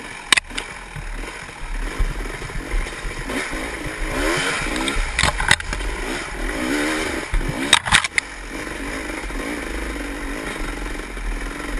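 Enduro dirt bike engine revving up and down under load as it climbs over rough ground, with sharp knocks from the bike a little after the start and twice more near the middle.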